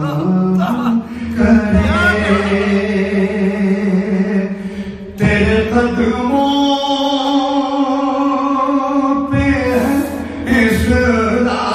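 A man singing a manqabat, an Urdu devotional song, into a microphone, holding long notes that step from one pitch to the next.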